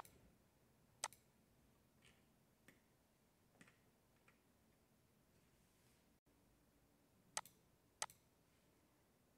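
Computer mouse clicks over near silence: a handful of sharp single clicks, with fainter ticks between them.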